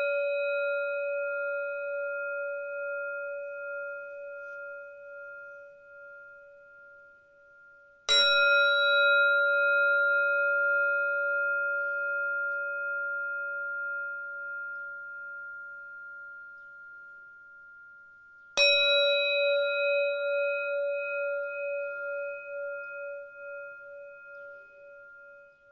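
A singing bowl rings from a strike just before, then is struck again about eight seconds in and once more about eighteen seconds in. Each strike rings out in a long, slowly fading tone that wavers as it dies away.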